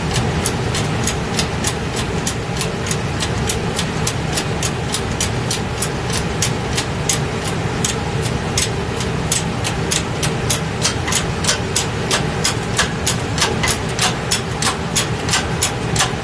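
Hydraulic shop press being pumped by hand to press a wrist pin into a piston and connecting rod: rapid, regular clicking about three times a second that grows more distinct partway through, over a steady low mechanical hum.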